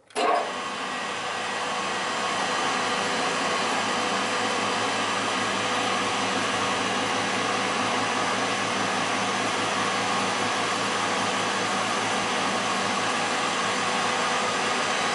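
REMA DMMA 35 table saw switched on: the motor starts with a brief loud surge a fraction of a second in, then the saw runs steadily, blade spinning free with no wood being cut.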